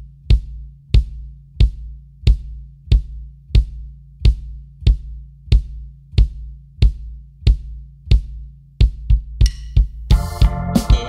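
Kick drum with an Evans EMAD batter head, Remo Powerstroke 3 resonant head and a Kickport, played with a foot pedal at an even pace of about one and a half strokes a second. Each stroke is a beater click and a low boom. The strokes come quicker near the end, as music with guitar comes in.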